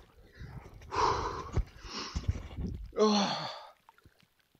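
A man breathing hard in icy lake water: loud rasping breaths in and out, the forced breathing of cold-water shock, with a short voiced groan about three seconds in.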